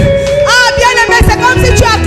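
Worship music: held keyboard chords and a steady bass, with a voice singing or praying over them.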